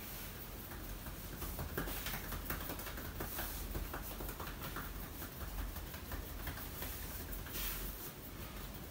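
Fingers rubbing and scratching through a man's hair and over his scalp during a head massage: a dense, uneven stream of small crackles and rustles.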